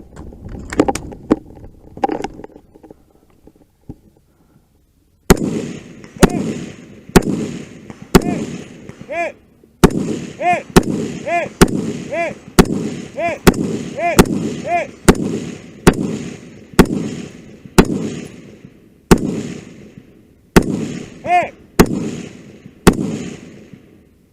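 Gunfire on a 3-gun stage: after a few seconds of shuffling noise and a short quiet, a long string of about twenty-odd shots at a steady pace of one or two a second. Many shots are followed by the ringing ping of a hit steel target.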